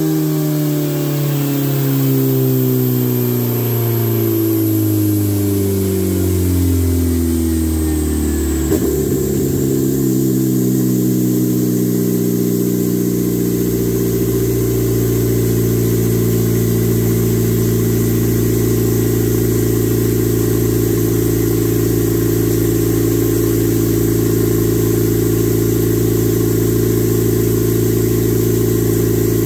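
Turbocharged Suzuki Hayabusa engine on a motorcycle dyno winding down after a pull, its pitch falling over the first nine seconds or so. After a brief click it settles into a steady idle.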